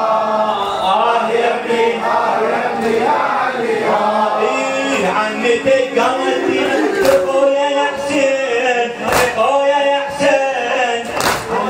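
A male reciter chanting an Arabic mourning lament (latmiya) through a microphone, with a group of mourners chanting along. From about halfway in, sharp thumps come about every two seconds: mourners beating their chests in time.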